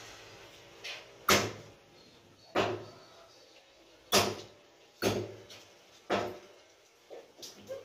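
A heavy butcher's cleaver chopping duck meat and bone on a wooden chopping block: about six sharp chops roughly a second apart, then a few lighter knocks near the end.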